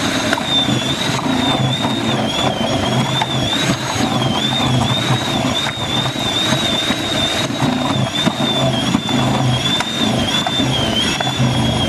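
Electric food processor running with a shredding disc, grating carrot and apple pieces pushed down the feed tube: a loud, steady high-pitched motor whine over a rough grinding hum, the whine wavering slightly as the vegetables load the motor.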